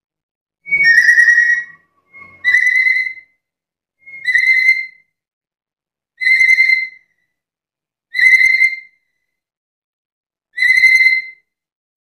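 Black-capped lory calling: six loud calls of under a second each on one steady, piercing pitch, repeated about every two seconds.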